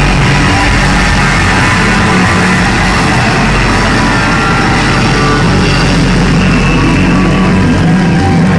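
Live rock band playing loud with heavy guitar, recorded from the crowd on a phone or camera whose sound is overloaded and distorted.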